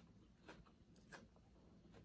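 Faint mouth sounds of a person chewing a mouthful of glass noodle salad: a few soft, brief wet clicks over a near-silent room.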